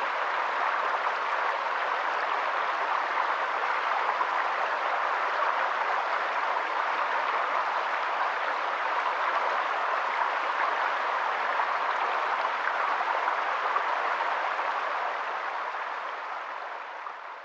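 Steady rushing roar of a wide waterfall, Ventas Rumba, the broad low falls on the Venta River, fading out near the end.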